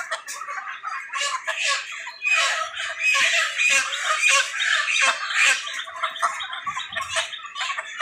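A flock of broiler chickens squawking and calling together, many overlapping calls at once, louder in the middle.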